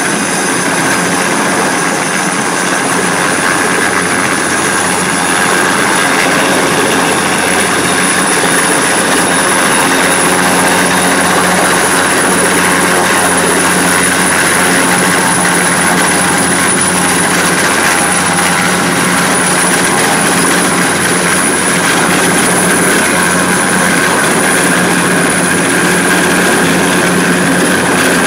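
Helicopter hovering low during a rooftop air-conditioner lift, its rotor and engine running steadily with a constant high whine. It grows a little louder over the first several seconds.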